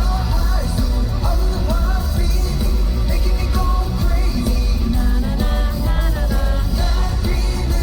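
Male singer performing a pop-rock song live over a loud band track with heavy bass.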